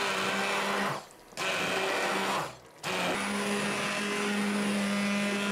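Hand-held immersion blender motor running with a steady hum as its blade purées a pot of stewed zucchini, carrot and onion into a smooth mass. It cuts out briefly about a second in and again a little before the three-second mark, then runs on.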